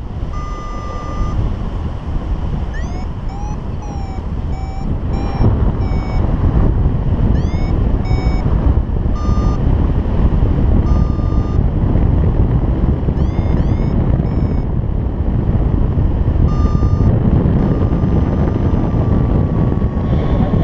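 Paragliding variometer beeping: short steady beeps alternate with quick groups of rising chirps, and near the end one long held tone. Under the beeps runs a steady rush of flight wind on the microphone.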